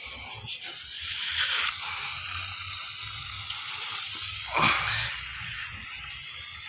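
Hand-pumped garden pressure sprayer spraying shampoo foam onto a car tyre: a steady hiss of spray that starts about half a second in, with one louder surge a little past the middle.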